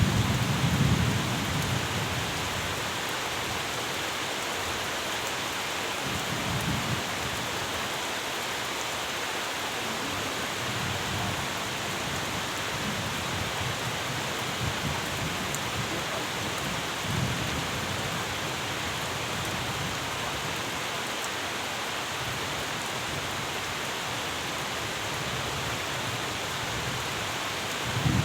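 Steady rain, with low rumbles of thunder every several seconds, loudest just at the start and again at the very end.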